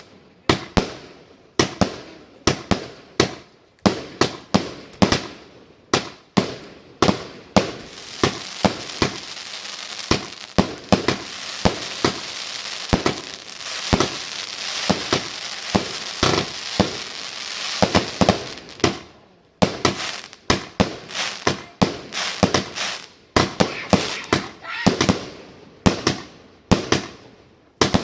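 Fireworks going off in a rapid, irregular string of sharp bangs, about one or two a second. Through the middle stretch a continuous crackling hiss runs under the bangs, then the bangs carry on on their own.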